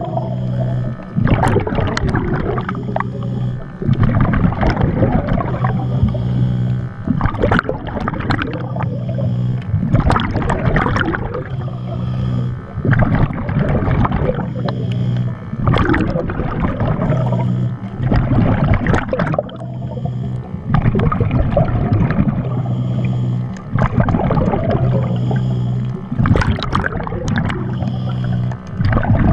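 Muffled underwater sound through a camera housing: a steady low hum broken every few seconds by rushing bursts of bubbles from the diver's breathing.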